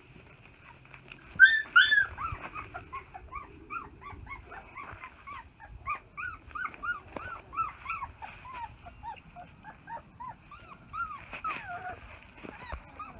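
A puppy whimpering: two louder yelps about a second and a half in, then a long run of short, high whines, two or three a second.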